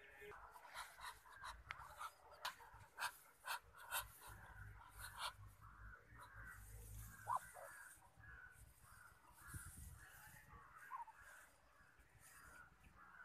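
Muscovy ducks calling softly in a quick repeated series, with a run of sharp clicks during the first few seconds.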